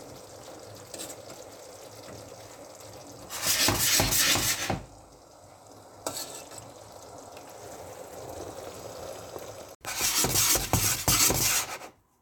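Hot pan of cream sauce sizzling and being stirred with a wooden spoon as freshly boiled potato gnocchi go into it. The sizzle is loudest in two spells, about three and a half seconds in and over the last two seconds, with a quieter steady cooking noise between.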